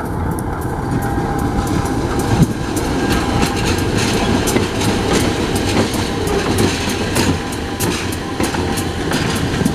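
CC 201 diesel-electric locomotive running light past at close range: a steady diesel engine rumble with wheels clicking over the rail joints, and one sharper knock about two and a half seconds in.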